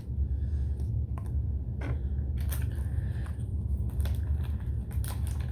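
Scattered small clicks and taps from handling slime-making supplies (glitter, containers, mixing), over a steady low hum.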